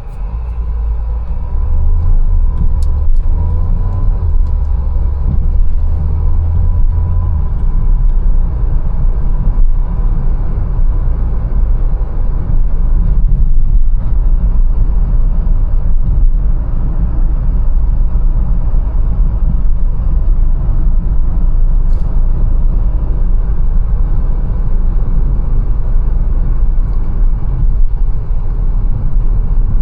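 Mercedes-Benz A180 on the move: a steady, heavy low rumble of engine and road noise that grows louder about a second in as the car gets going. A faint thin whine sits over it for the first several seconds.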